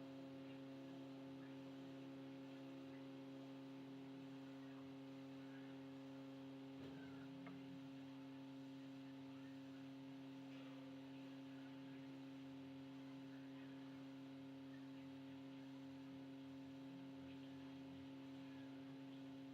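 Near silence with a faint, steady electrical hum and a few tiny clicks.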